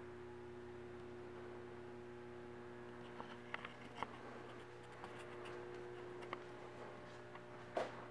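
Quiet room tone: a steady low electrical hum, with a few faint clicks and taps and a slightly louder knock near the end.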